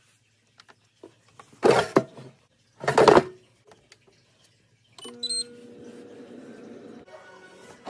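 Two loud, brief handling noises, then a Ninja XL air fryer beeps as it is started about five seconds in and its fan begins running with a steady hum.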